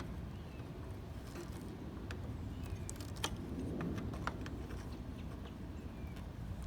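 Scattered light metal clicks and taps, about half a dozen spread out, from pliers working a bolt on a battery cable terminal, over a steady low rumble.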